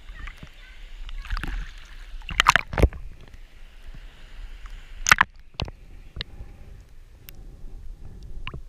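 Shallow seawater sloshing and splashing around a camera bobbing in and out of the surface, with a low rumble of moving water. Sharp splashes or knocks break through, the loudest a cluster about two and a half seconds in and another just after five seconds.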